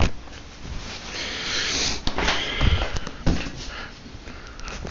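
Rustling handling noise with a couple of sharp knocks a second apart, from clothing or packaging being handled by hand.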